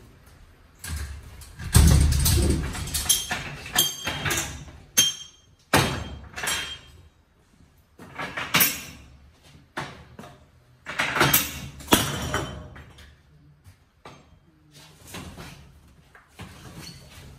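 Irregular metal clanks, rattles and knocks of wire roll cages and a cargo strap being handled inside a box trailer, with a heavy thump about two seconds in.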